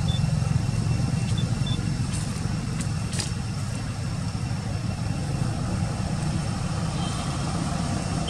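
Steady low rumble of outdoor background noise, with a few faint, short high-pitched peeps in the first two seconds.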